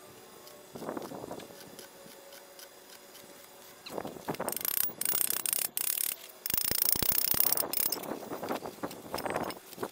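Steel wire brush scrubbed over a fresh stick weld on thin steel square tubing to clean off slag: loud, rapid scraping from about four seconds in, in stretches with brief pauses. Before it, a soft knock about a second in.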